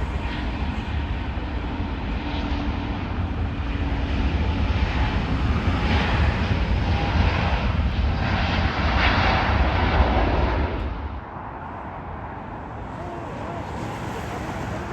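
Jet airliner passing close, its engine noise building to a peak about nine to ten seconds in, then dropping away sharply about eleven seconds in.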